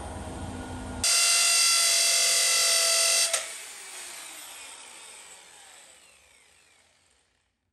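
A loud, high electric motor whine starts suddenly about a second in and stops with a click a little after three seconds. It then winds down, falling in pitch and fading out over the next few seconds. Background music ends abruptly just before the whine starts.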